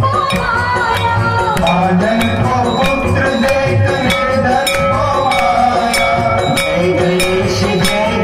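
Devotional aarti song: a voice sings a melody over a steady held note and a regular beat of percussion strikes.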